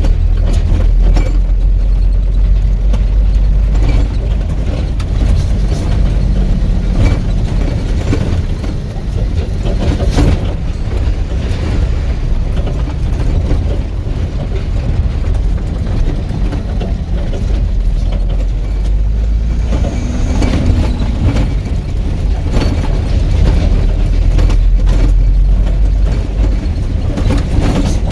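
Motor vehicle on the move, heard from on board: a steady, loud low rumble with frequent rattles and knocks throughout.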